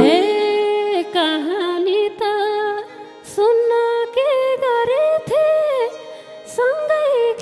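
A woman singing a Nepali dohori folk song into a microphone, in long, ornamented phrases that glide and waver in pitch, with short pauses between them.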